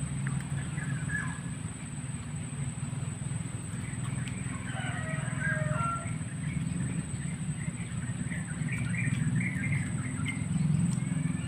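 Birds chirping off and on over a steady low rumble, with a constant high, thin tone throughout.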